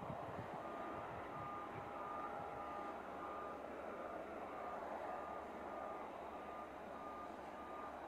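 Reversing alarm of an airport ground vehicle beeping evenly, about one and a half beeps a second, over a steady rumble of aircraft and apron machinery.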